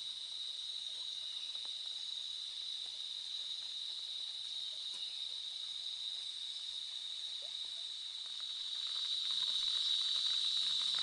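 Night insects, crickets among them, calling in a steady high-pitched chorus over a faint hiss. The chorus grows louder about eight seconds in.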